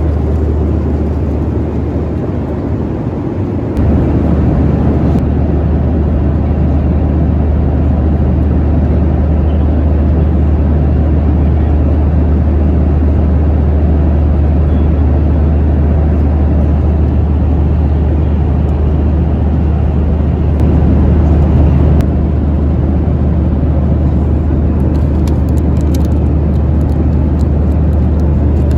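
Steady engine and airflow noise inside the cabin of a Boeing 737-900ER, a loud even rush over a deep hum, which steps up in level about four seconds in.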